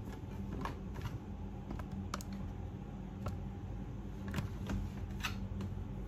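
Light, irregular clicks and taps from handling a front-loading washing machine: its glass door being swung and its programme selector dial being turned, over a steady low hum.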